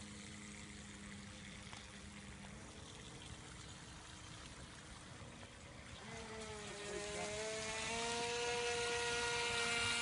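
Water washing, then about six seconds in a boat's motor comes up, rising in pitch, then running steady and getting louder.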